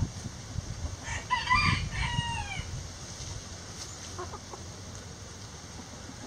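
Rooster crowing once, starting about a second in, in several syllables that end in a falling note. A short, faint chicken call follows near the four-second mark.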